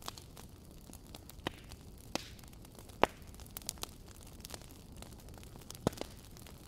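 Steady faint static hiss and hum, broken by scattered sharp crackles and pops; the loudest pop comes about three seconds in, another near the end.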